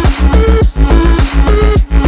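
Electronic dance music with a deep bass and a steady repeating beat.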